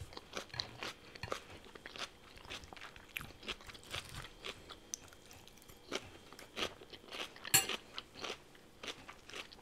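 A person chewing and crunching food close to the microphone. There are irregular crisp crunches throughout, with one sharper crunch about three-quarters of the way through.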